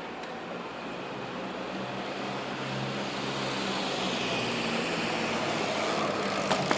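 A motor vehicle approaching, its steady hum growing louder, with two sharp clicks near the end.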